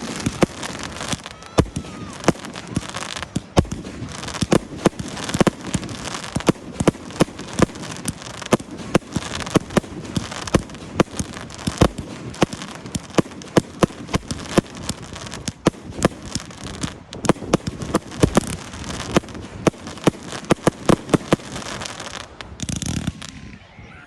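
Fireworks display: a dense barrage of sharp bangs and crackles. It eases off near the end after a louder, longer whoosh-like burst.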